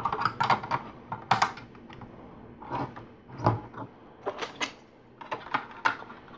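LEGO plastic pieces clicking and clattering as they are handled and pressed together, a string of small irregular clicks.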